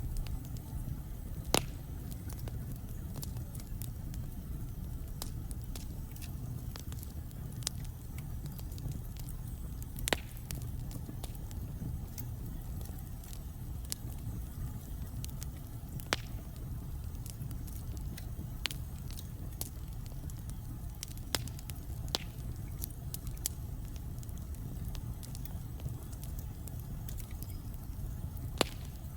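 Wood fire burning in a fireplace: a steady low rumble with irregular sharp crackles and pops, the loudest about a second and a half in and about ten seconds in.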